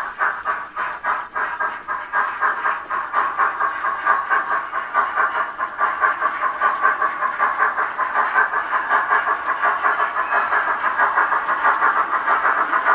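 Model steam train running along the layout toward the listener: a rapid, even rhythmic beat with hiss, growing steadily louder as it draws closer.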